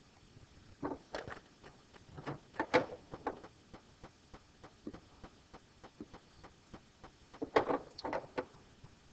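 Small sharp clicks and taps from working drawing software with a hand-held input device: a few about a second in, a denser run around two to three seconds in, and another cluster near eight seconds, with faint scattered ticks between.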